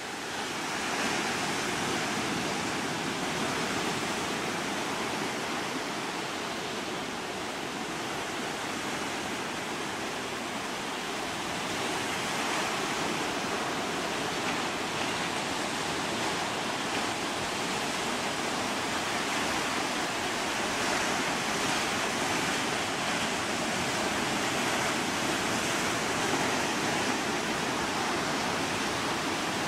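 Steady rushing of sea water, an even hiss of surf without any distinct knocks.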